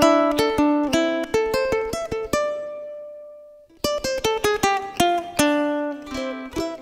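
Solo ukulele picking an introduction, single plucked notes and chords. About two and a half seconds in, a note is left ringing and fades away, and the picking starts again about a second later.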